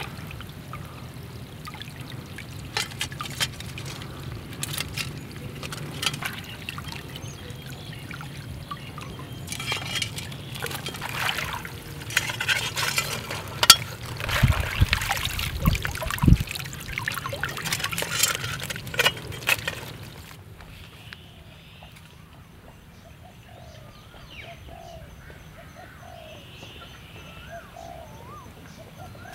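Shallow paddy water splashing and trickling as hands and a woven bamboo crab trap are worked through it. About two-thirds of the way through, the splashing stops suddenly and birds chirp.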